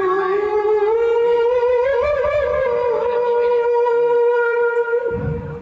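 A woman's voice reciting the Qur'an in melodic chant, holding one long high note for about five seconds with a short ornamental wavering in the middle. It stops shortly before the end.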